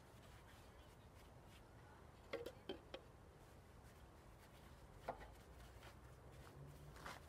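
Near silence: faint room tone with a few soft knocks, three close together about two and a half seconds in and one more near five seconds.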